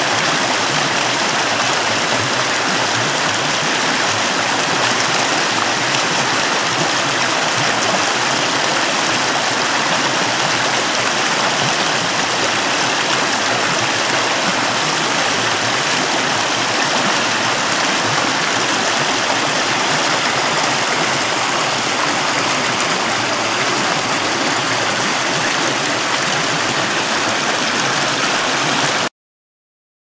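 Creek water rushing and splashing over rocks in small rapids, a steady loud rush that cuts off suddenly near the end.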